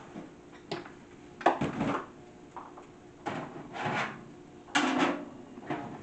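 Small kitchen appliances being handled on a countertop, a toaster oven among them: a series of knocks, bumps and scrapes as they are shifted and set down, the loudest about halfway through and shortly before the end.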